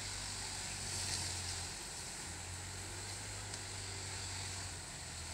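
Vehicle engine idling, a faint, steady low hum that drops out briefly about two seconds in.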